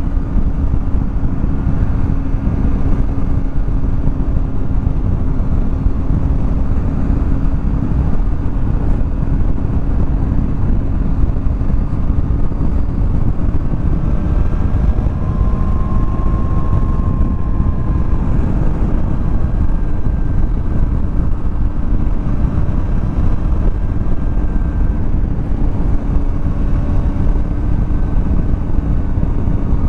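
Triumph Tiger 800 three-cylinder motorcycle cruising at a steady speed on an open road: heavy wind rush over the microphone with a steady engine hum underneath.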